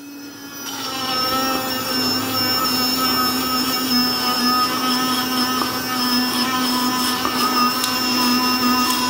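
Bitvae D2 sonic electric toothbrush running steadily in whitening mode while brushing teeth: a constant buzzing hum with a scrubbing wet brush noise. The hum starts right away and gets louder about a second in, as the head goes into the mouth.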